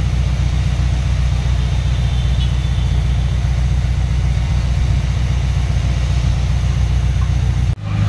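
Heavy diesel engine of earthmoving machinery running steadily with a low throb. Just before the end the sound cuts out for a moment and comes back as a different, steadier engine tone.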